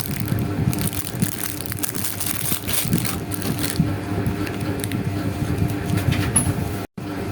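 Close-up paper and stationery handling for journaling: a steady stream of small rustles, taps and scratches, broken by a split-second gap near the end.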